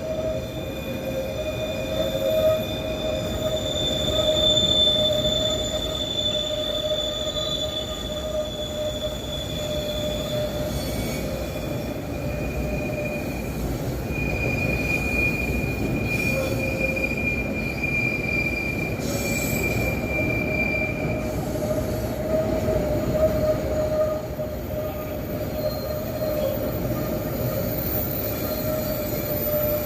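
Train wheels squealing against the rails as a heavy train moves up the grade: several steady high-pitched tones held for many seconds, changing pitch midway, over a continuous low rumble of the train.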